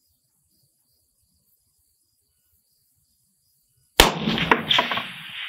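A single shot from a suppressor-fitted Galil DMR rifle in 6.5 Creedmoor about four seconds in, a sudden loud crack followed by echo rolling across the range, with another sharp crack near the end.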